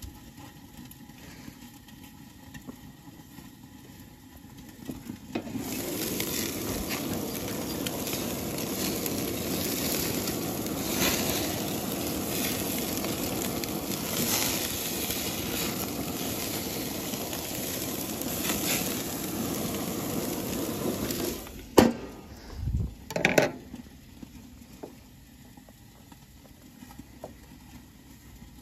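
Rib-eye steaks sizzling on a propane grill's grate over open flame: a loud steady hiss that starts about five seconds in. It stops abruptly about 22 seconds in with a sharp clank and a couple of thumps as the grill's metal lid is shut.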